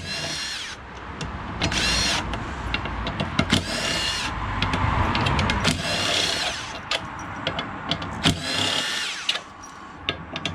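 Power drill run in short bursts, about five times, each a second or so of motor whine, with clatter of scrap metal being handled between bursts, as parts are taken off scrap for their brass and copper.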